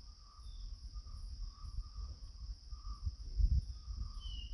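Background noise with no speech: a steady high-pitched tone over a low rumble, the rumble briefly louder about three seconds in.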